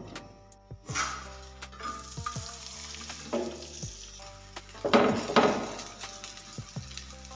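Corn bread (makai ki roti) sizzling as it cooks on a hot pan. The sizzle swells louder about a second in, again at about three and a half seconds, and most strongly around five seconds, with soft background music underneath.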